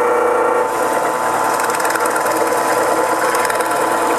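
WEN 4214T 5-amp variable-speed benchtop drill press running steadily while a 1 1/8-inch Forstner bit bores into pine, with the cutting noise rising about half a second in. The motor holds its pitch under the load of the big bit: it doesn't bog down.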